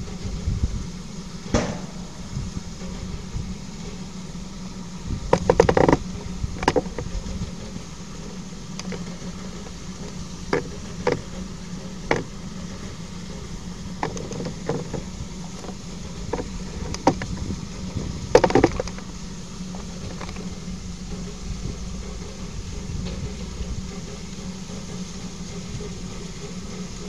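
Steady mechanical hum and hiss of a train, broken by scattered sharp knocks and two brief rattling clusters, about six and eighteen seconds in.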